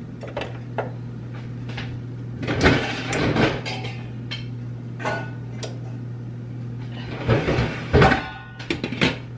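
Clanks and knocks of a large stainless steel stockpot and its metal lid being handled and set on the stove, in two busy clusters, over a steady low hum.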